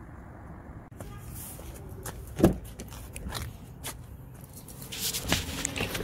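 Steady low background noise, then handheld clatter as a car's driver door is opened and someone climbs in: footsteps and rustling, a sharp knock about two and a half seconds in, and more clicks and rustling near the end.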